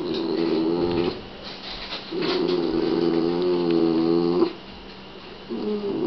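A Shiba Inu's long, wavering gargling growls, guarding a rawhide bone: one of about a second, a longer one of about two seconds, and another starting near the end.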